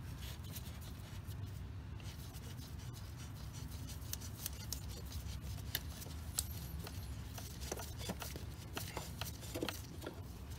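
Rubbing and scattered small clicks and scrapes of a gloved hand unscrewing the oil filter housing cap on a 3.6L Pentastar V6 by hand, the clicks growing more frequent in the second half, over a low steady hum.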